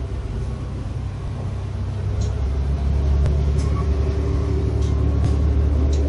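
Crystal Express KiHa 183 series diesel train heard from inside the passenger car as it pulls away from a station. The engines and running gear make a steady low rumble, which grows louder about two seconds in as the train gathers speed.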